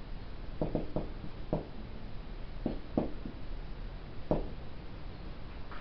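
Marker writing on a whiteboard: a series of short, irregular scratchy strokes.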